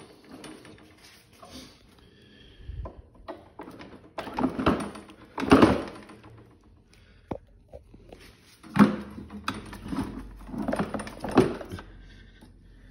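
Handling noise from a lawnmower's handle being shifted and worked into place to line up its bolt holes: a scatter of knocks, clunks and rubbing, the loudest clunks about five and a half seconds and nine seconds in.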